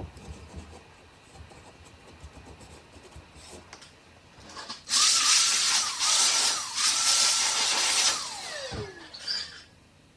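A small electric power tool switches on about five seconds in and runs with a loud hiss and a whine that dips in pitch twice under load. About three seconds later it switches off and spins down with a falling whine.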